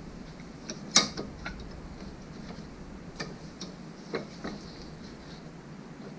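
A handful of light, sharp clicks and taps as a rear main seal is worked into place on a Ford 4.6 SOHC engine, the loudest about a second in and smaller ones scattered after it.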